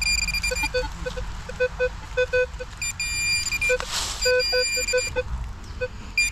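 Minelab pinpointer and metal detector beeping over a target in a dug hole: high beeps at first, then short low pips in irregular groups, with the high beeps coming back about three seconds in. A brief scrape of soil or leaves about four seconds in. The detectorist takes the target for buried aluminium trash, probably a can.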